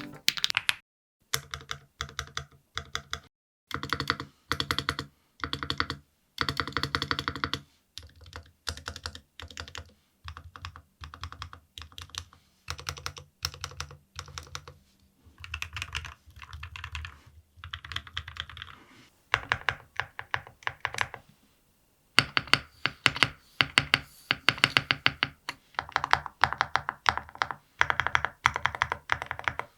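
Stabilized long keys (spacebar, enter, shift and the like) on a NAGARE80 Barista custom keyboard with Flower Shadow linear switches, pressed repeatedly in quick runs of clacks. The stabilizers are tuned but still make a little noise. There is a short pause near the middle, after which the presses come thicker.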